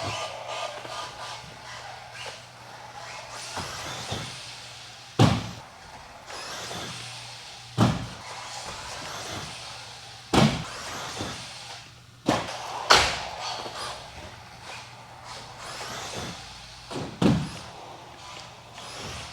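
Electric 1/10 RC buggy (Associated RC10B6.4) running laps on the track: a steady rush of tyres and drivetrain, broken by about half a dozen loud sharp thuds as the car slams back onto the track.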